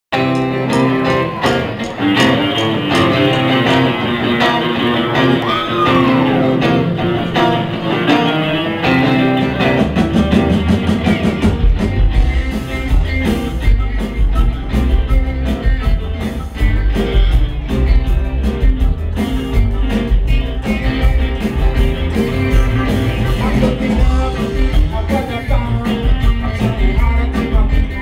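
Live reggae band playing: a harmonica's bending melody over electric guitars, then upright bass and drums come in heavily about eleven seconds in.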